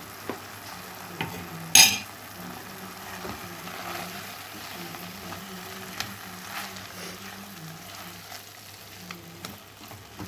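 Onion-tomato masala with ground spices frying gently in a pan over a low gas flame, sizzling quietly while being stirred with a spoon, with small scrapes and ticks. One sharp knock about two seconds in is the loudest sound.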